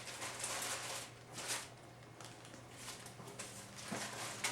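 Soft rustling and handling of parts packaging in a few short bursts, over a faint steady low hum.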